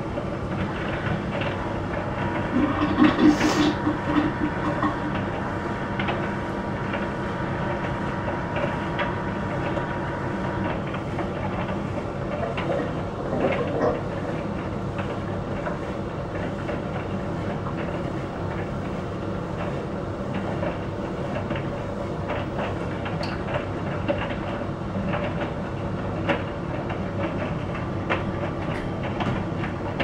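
Bosch Exxcel condenser tumble dryer running mid-cycle with a load of towels: a steady motor-and-fan hum under the drum's turning, with faint irregular clicks and a brief louder noise about three seconds in. The machine is running normally.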